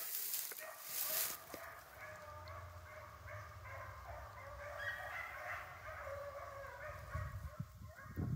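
Pack of rabbit hounds baying in the distance as they run a rabbit, several voices overlapping, with a brief rush of hiss in the first second.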